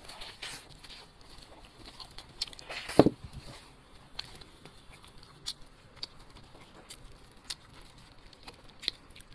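Close-up eating sounds: chewing braised meat and handling it in its sauce with plastic-gloved hands, sparse wet clicks and smacks. One louder thump about three seconds in.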